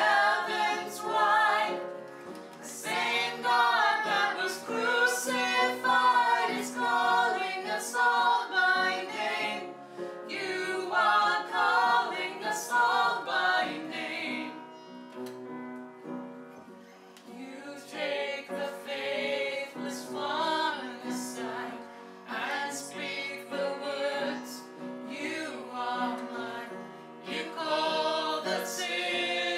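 A group of voices singing a hymn-like song in long phrases, with short breaths between lines and a longer break about halfway through.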